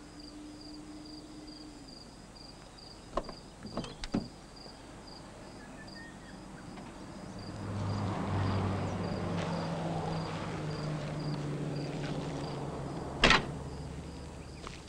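Car door unlatched with a few sharp clicks about three to four seconds in, then slammed shut once near the end, the loudest sound. Crickets chirp steadily in an even pulsing rhythm throughout, and a low hum swells up in the middle and fades.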